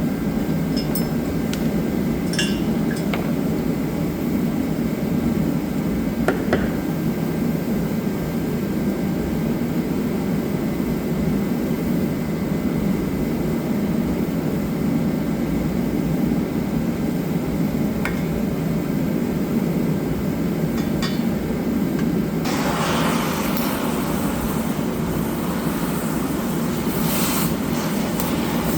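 A steady low drone with a few scattered metallic clinks and taps of tools on metal parts. About three-quarters of the way through, a loud hissing rush starts and continues.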